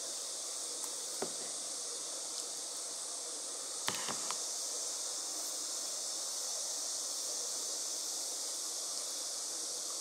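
Steady high-pitched hiss, with a few faint clicks about a second in and again around four seconds in.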